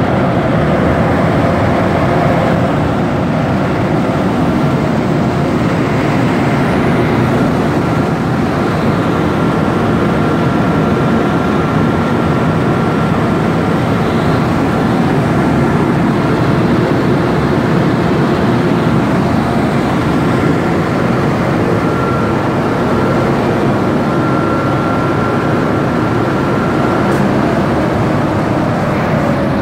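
Remanufactured Kinetic pipe organ blower, driven by a 30-horsepower electric motor, running at speed: a loud, steady rush of air with a faint thin high tone that comes and goes. It runs smoothly with its intakes open and outlets throttled back, which the owner takes as a fully successful test.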